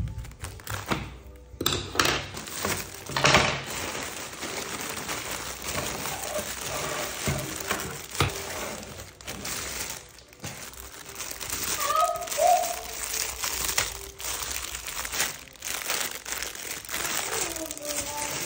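Plastic packaging crinkling and rustling as a poly mailer bag is opened and items in clear plastic bags are handled, with a few sharp clicks along the way.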